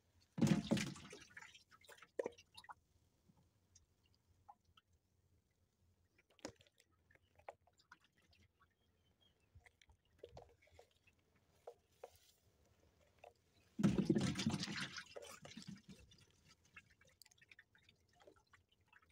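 Water splashing and dripping as a mesh fish trap is lifted out and handled, with two louder splashes, one just after the start and one a little past the middle, and scattered small drips and clicks between.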